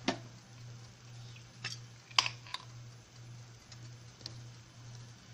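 A few sharp clicks and knocks of a glass balsamic vinegar bottle and kitchenware being handled at the stove, the loudest about two seconds in, over a steady low hum.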